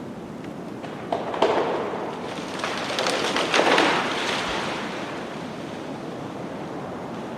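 Natural water rushing with a steady hiss, swelling into louder splashing surges between about one and four and a half seconds in, then settling back.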